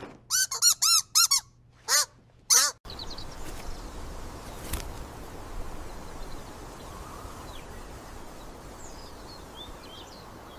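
Rubber duck squeaking about six times in short squeaks that rise and fall. Then a steady outdoor background hiss with a few faint bird chirps.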